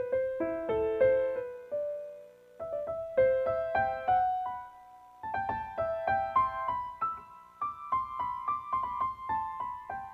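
Solo piano music: a melody of single struck notes that each fade, with brief pauses about two and a half and five seconds in.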